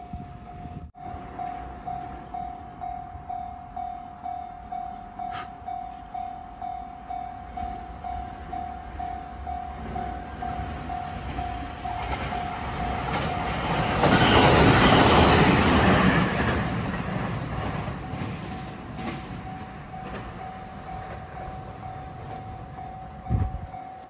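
Japanese level-crossing warning bell ringing steadily, about one and a half strokes a second. A 521 series electric train approaches and passes, its wheels and running gear loudest for a few seconds midway. The bell keeps ringing after the train has passed.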